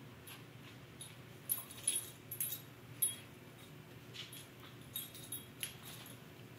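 A Shetland sheepdog puppy and a kitten scuffling on a hardwood floor: scattered light clicks and taps of paws and claws, bunched between about one and a half and three seconds in, with a few more near five seconds.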